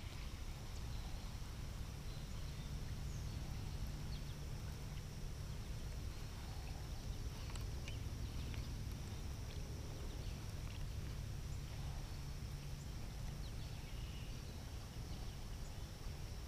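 Quiet outdoor background: a low steady rumble with a faint, steady high hiss and a few soft ticks.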